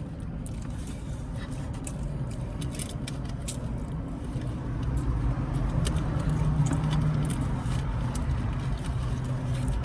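Steady low rumble of a running motor vehicle, a little louder about halfway through, with scattered small clicks and taps.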